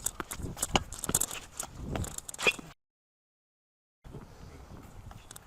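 A quick run of sharp knocks and clicks from play on a tennis court for about two and a half seconds, then the sound cuts out completely for over a second at an edit, then faint outdoor background.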